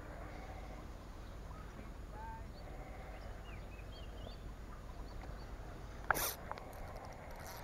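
Outdoor ambience with a steady low rumble and faint, scattered bird chirps. About six seconds in comes one sharp click followed by a brief hiss.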